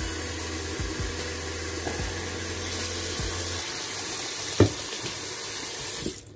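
Water running from a kitchen tap into a stainless-steel sink, with a few light knocks, one sharper about four and a half seconds in. The flow stops just before the end.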